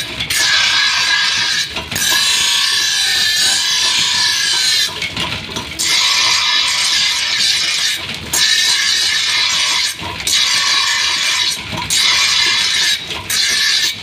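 Steel sword blade being ground on a spinning belt-driven grinding wheel: a loud, steady hiss of metal on the abrasive wheel. It breaks off briefly every one to three seconds as the blade is lifted and set back on for the next pass along the edge.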